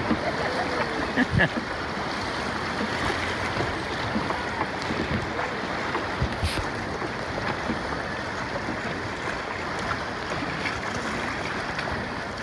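Steady rush of river whitewater rapids churning around an inflatable raft, with a couple of short knocks about a second and a half in.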